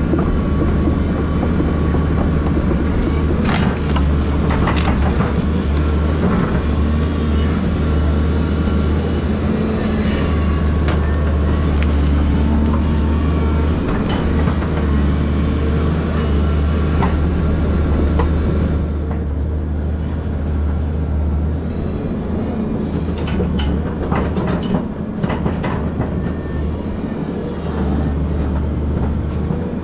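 Volvo EC220DL excavator's diesel engine and hydraulics working steadily under load as its root rake scrapes stumps and soil, with scattered metallic clanks and knocks. The strain eases a little about two-thirds of the way through.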